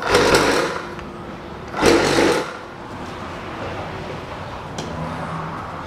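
50-litre piston air compressor's electric motor switched on and running: two loud bursts in the first two seconds, then a steady running sound. The motor works.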